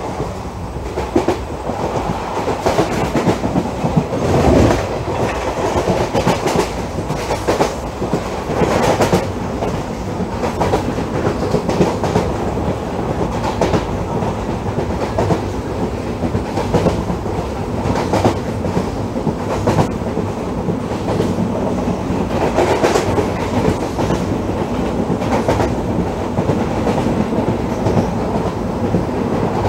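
Passenger train coach running at high speed: steady rumble and rush with the wheels clattering over rail joints, loud as heard from an open coach doorway.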